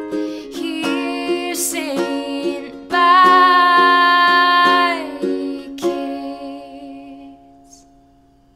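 Outro background music: a run of plucked notes, then a long held note about three seconds in that slides down at its end, after which the music rings out and fades away near the end.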